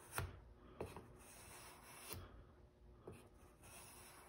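About four short, faint scrapes of the flat back of a single-bevel steel broadhead being pulled across abrasive paper laid on glass, the first the loudest. This is the deburring step, taking off the burr rolled over from the bevel side.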